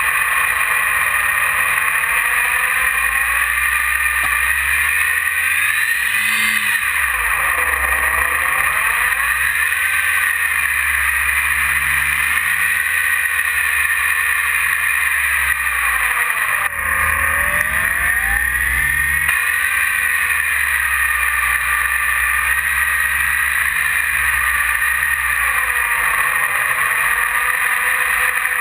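E-flite 480 1020 kv brushless outrunner motor and propeller whining steadily, heard from on board the RC plane, with wind rushing past underneath. The pitch swoops down and back up twice, about six seconds in and again about seventeen seconds in, as the throttle is eased off and opened again.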